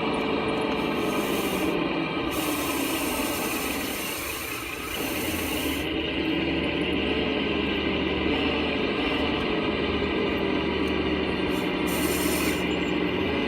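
1/14-scale RC Caterpillar D11 bulldozer running: a motor whine that sinks and rises in pitch over a steady hum and a dense mechanical clatter, easing off briefly about four seconds in, with stretches of high hiss at times.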